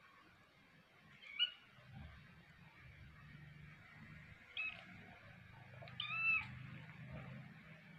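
A kitten mewing three times in thin, high-pitched mews, about a second in, near the middle and at about six seconds; the last is the longest and loudest.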